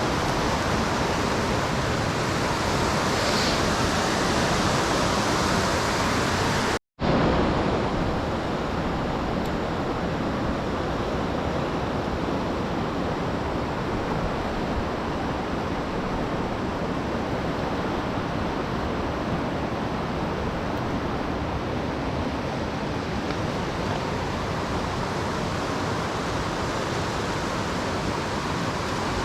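Fast-flowing mountain creek water rushing steadily. It cuts out briefly about seven seconds in.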